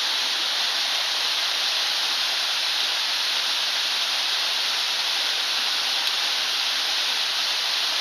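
Waterfall and cascading stream water rushing in a steady, unbroken hiss.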